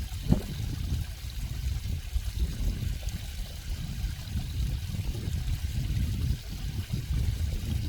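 Flowing water from a stream, running steadily, with most of its sound deep and low under a fainter hiss.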